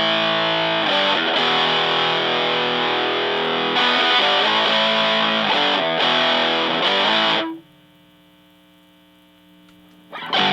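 Fender Stratocaster played through the hand-wired PineTop Distortion pedal into a Fender Blues Junior amp, chugging distorted chords with the pedal's bass control turned clockwise for more low end. About three-quarters of the way in the playing stops, leaving only a faint held note, then the distorted chords start again just before the end.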